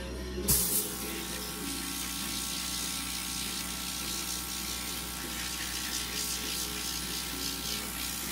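Airbrush spraying paint: a steady hiss of compressed air that starts with a short burst about half a second in, over a steady low hum.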